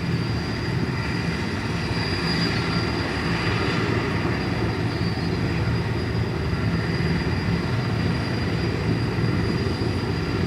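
Large helicopter running: a steady, loud rotor and engine rumble with a thin, high turbine whine held over it.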